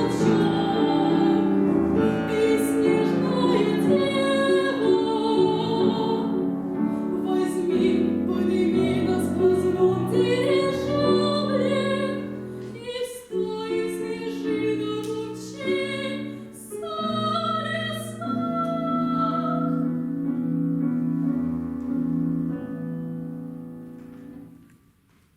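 A young female soloist singing a classical piece with piano accompaniment, closing the piece: the voice drops out after about twenty seconds and the piano chords fade away near the end.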